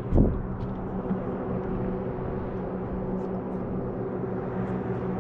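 A boat motor running with a steady low hum, holding an even pitch throughout. A short thump is heard right at the start.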